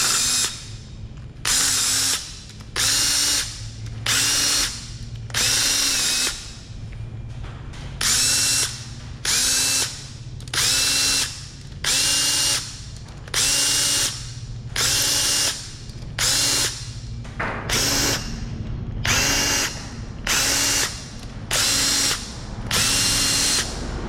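Snap-on power tool's motor whirring in about seventeen short bursts, each under a second, pitch rising as it spins up and dropping as it stops, as bolts are run out of the engine.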